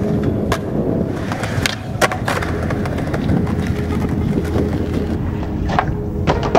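Skateboard wheels rolling over the ground, a steady rumble broken by several sharp clacks of the board as it is popped and landed, the loudest about two seconds in.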